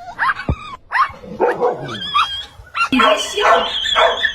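A dog giving short high yips, then barking repeatedly, about two barks a second, from about three seconds in.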